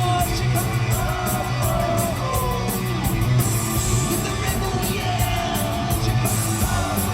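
Live hard-rock band playing loud and steady: distorted electric guitars, bass and regular drum beats, with a wavering lead line over the top.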